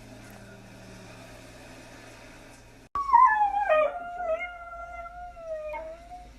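Siberian husky howling in response to a tornado siren: one long howl starting about halfway through, sliding down in pitch at first and then holding steady, with a few breaks in the voice. Before the howl there is only a faint steady hum.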